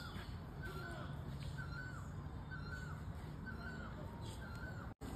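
A bird calling over and over, one short call about once a second, over a steady low hum. The sound cuts out for an instant near the end.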